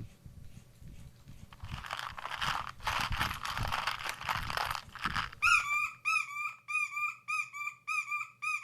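Foley sound effects: a few seconds of rustling, scuffling noise with low thumps, then from about halfway a run of short, squeaky whistled chirps, about two a second, like a bird call.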